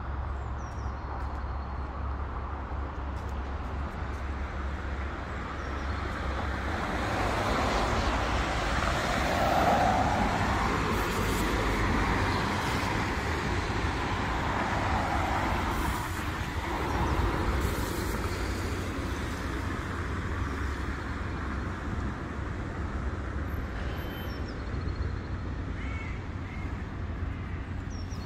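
Street traffic: a passing vehicle swells and fades over a steady low rumble.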